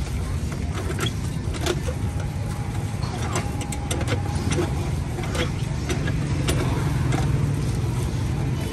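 Steady low rumble of street traffic, with scattered short metal clicks and clinks from a stainless-steel lever-arm hand juicer being worked.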